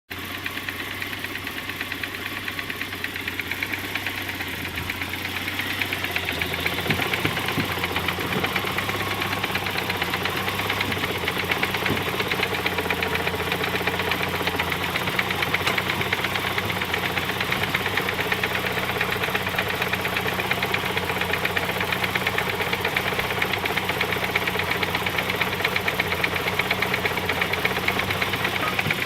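A 1991 Saab 900 Aero's turbocharged four-cylinder engine idling, with a rapid, steady knock in time with the engine. It gets a little louder about six seconds in. The owner does not know what is causing the knock.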